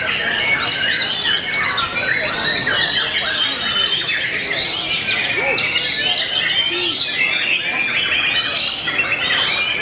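White-rumped shamas (murai batu) singing, a dense, unbroken run of quick whistles, chatter and harsh squawky notes from several birds overlapping.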